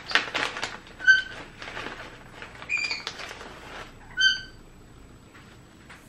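Foil treat bag crinkling and rustling as it is handled and a treat is taken out, mostly in the first two seconds. A cockatiel gives three short chirps, about one, three and four seconds in.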